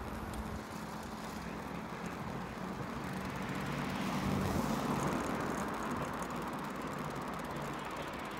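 Road traffic: motor vehicles driving past, a steady mix of engine and tyre noise that swells a little about halfway through.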